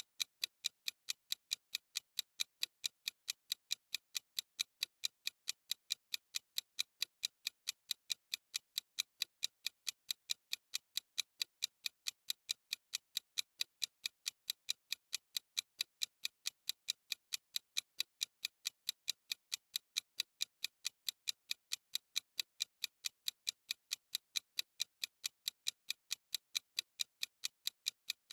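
Clock-ticking sound effect of a countdown timer: sharp, evenly spaced ticks at a steady fast pace.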